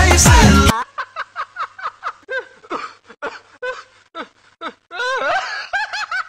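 A pop song with singing cuts off abruptly under a second in. A man then laughs in many short, quick bursts, getting louder about five seconds in.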